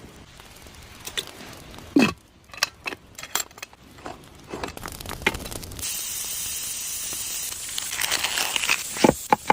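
Cooking sounds: scattered clicks and crackles with a sharp knock about two seconds in, then a steady hiss for a couple of seconds past the middle and a quick run of clicks near the end.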